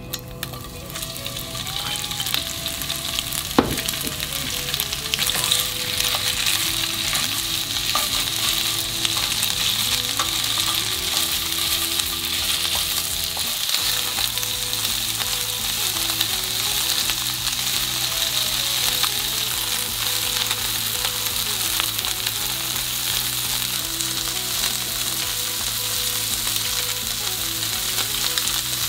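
Thin-sliced pork sizzling in hot oil in a nonstick frying pan as it is stirred with chopsticks; the sizzle builds over the first couple of seconds after the meat goes in, then holds steady. A sharp tap of the chopsticks against the pan comes about three and a half seconds in.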